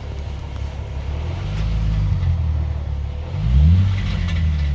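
2006 Ford Mustang's 4.0-litre V6 revved in neutral: the engine rises gently about a second and a half in, then is blipped sharply near the middle and falls back. It brings out a metallic rattle that the owner cannot trace to anything loose and that he likens to metal scraping.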